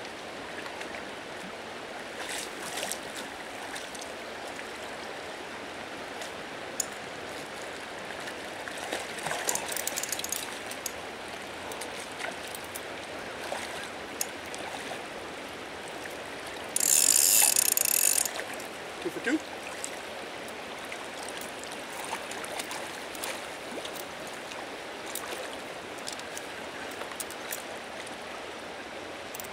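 Fishing reel's drag ratcheting as a hooked fish is played, over the steady rush of river water. One loud, high buzz lasting about a second and a half comes a little past the middle.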